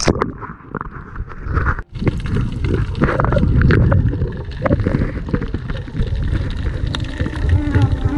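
A splash as the camera goes under the sea surface, then muffled underwater sound through the camera housing during a dive: a dense low rumble with many scattered clicks and crackles.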